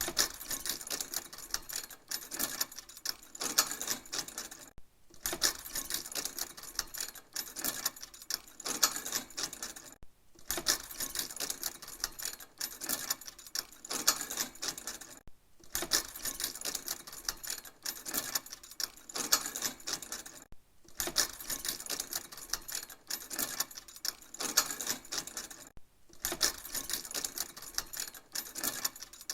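Metal chains rattling and clinking, in runs of about five seconds separated by brief pauses.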